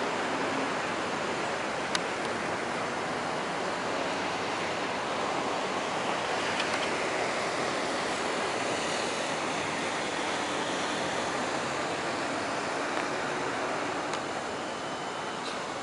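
Steady wash of outdoor noise, with a faint click about two seconds in and a slight drop in level near the end.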